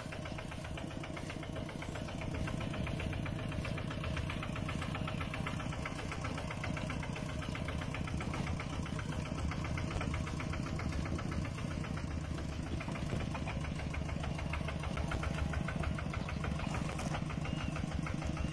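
Mini tractor engine running steadily with a fast, even chugging beat.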